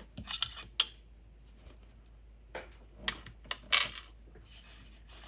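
Scattered clicks and light rattles of small hard plastic and metal parts being handled while an RC car chassis is taken apart, with a cluster early on and another about two and a half to four seconds in.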